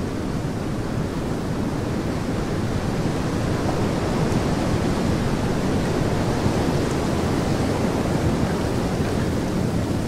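Strong blizzard wind with blowing snow, a steady rushing that swells a little in the middle and eases near the end.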